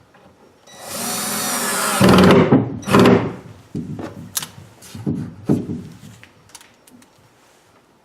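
A power drill drives a 1-inch drywall screw into wood. The motor whines up first. It then bogs under load in two loud bursts as the screw bites and seats, followed by several shorter pulses and a few clicks.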